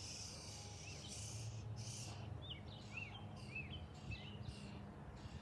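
Quiet outdoor ambience: a small bird chirps a quick series of short rising-and-falling notes in the middle, over a faint low steady hum and soft background hiss.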